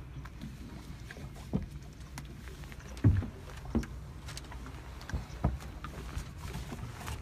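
Several hollow knocks and thumps of fibreglass deck hatch lids being opened and handled on a boat, the loudest about three seconds in, over a low steady rumble.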